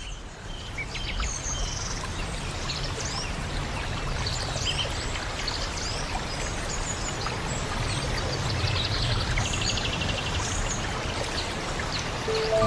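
Rainforest ambience: steady running water with many birds calling in short chirps and whistles over it, and a fast trill about three-quarters of the way through. It fades in over the first second.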